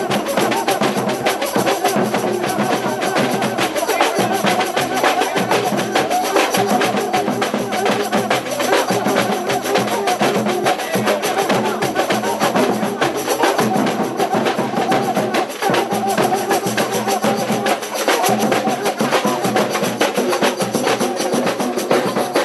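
Samba bateria drumming continuously, a steady fast rhythm of drums and hand percussion with a cuíca squeaking over it.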